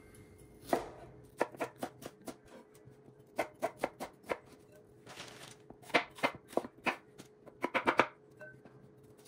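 Chef's knife slicing bell peppers on a wooden cutting board: sharp, irregular taps of the blade striking the board, coming in short runs, with the loudest run near the end.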